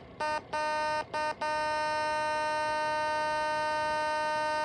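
Breadboarded 555-timer tone generator driving a small speaker: a steady, fixed-pitch buzzing tone rich in harmonics. It cuts out and restarts three times in the first second and a half, then holds steady without any rise or fall. The builder likens it to a triangle wave rather than the sine-like tone of real sirens.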